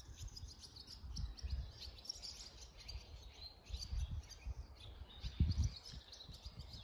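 Barn swallows twittering: many short, high chirps scattered throughout, from a group of parents and newly fledged young flying around the stables. Occasional low rumbles sound under them, the strongest about four and five and a half seconds in.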